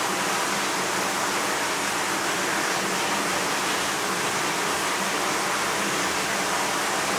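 Steady, even rushing noise with no breaks and no distinct events.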